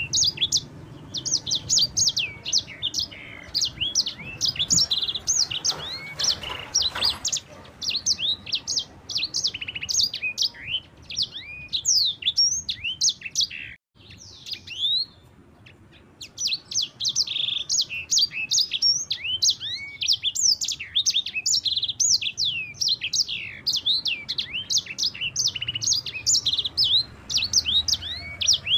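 Yellow-fronted canary (sanger, Mozambique canary) singing a fast, clear rolling song of rapid high sweeping notes, with a brief break about halfway through.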